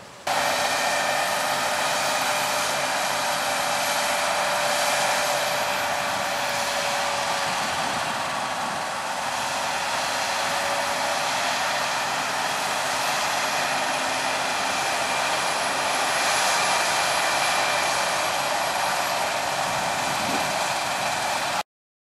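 Claas Lexion 7500 combine harvester working in barley: a loud, steady machine hum with a high whine over it, cutting off abruptly near the end.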